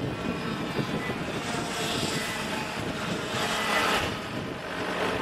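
Two-stroke engines of junior racing karts running at high revs on the track, swelling louder twice as karts go past.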